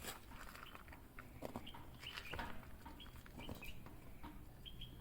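Faint, repeated short high chirps from small birds, with scattered light clicks and knocks.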